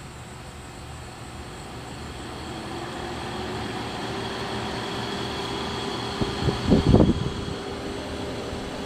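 Small window air conditioner's fan motor starting on its low setting, its hum rising in pitch and loudness over the first few seconds as the blower spins up, then running steadily with the compressor not yet on. A short cluster of thumps comes about seven seconds in.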